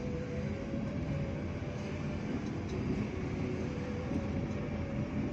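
Road and engine noise heard inside a moving car's cabin: a steady low rumble with a faint steady hum above it.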